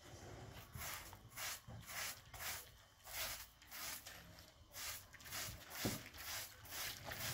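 Short straw hand broom sweeping across a carpet in quick repeated brushy strokes, about two to three a second, with a single knock about six seconds in.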